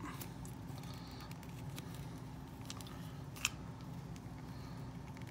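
Faint handling sounds: small clicks and rustles of fingers stretching a tight fabric doll swimsuit over a plastic doll body, with one sharper click about three and a half seconds in, over a steady low hum.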